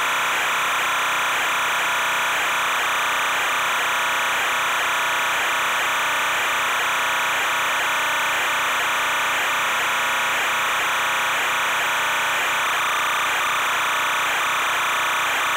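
Steady, unchanging noise, strongest in the middle and upper range, with no distinct events: the constant background on an ROV's video recording.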